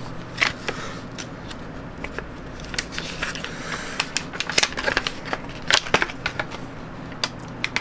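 Paper and plastic packaging handled by hand: irregular crinkles, rustles and sharp clicks.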